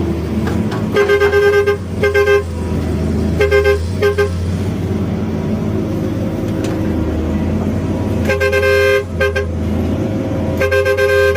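Heavy vehicle's horn sounding in repeated short toots over its steady running engine: a few toots in the first four seconds, a pause, then more from about eight seconds in and again near the end.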